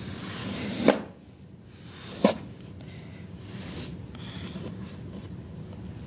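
A hand-held metal-bladed scraper drawn across the tight weave of a small flat-woven wool rug in a few rasping strokes. Two sharp clicks stand out in the first half, the first right at the end of the first stroke, and a shorter stroke follows a few seconds in.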